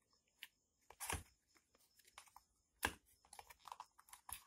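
Faint, scattered clicks and taps of cardboard box compartments being handled, with three sharper knocks about one, three and four and a half seconds in.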